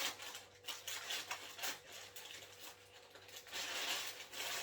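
Paper burger packaging being opened by hand: crinkling and scraping in bursts. The longest, loudest rustle comes near the end.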